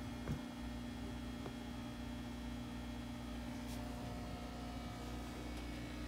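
Low, steady electrical hum from equipment in the room, with a faint click about a third of a second in.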